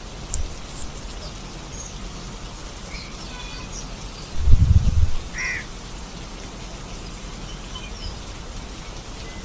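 Steady rain hiss, with a bird calling a few short times. A brief deep rumble comes about four and a half seconds in.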